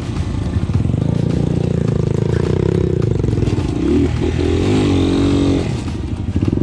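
A motorcycle engine running steadily, its pitch wavering up and down briefly about two-thirds of the way through.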